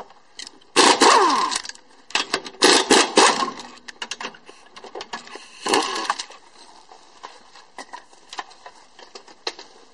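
Ingersoll Rand half-inch impact wrench hammering a car wheel's lug nuts loose in three bursts, the first two about a second long and the last shorter, with light clicks of socket and nuts in between.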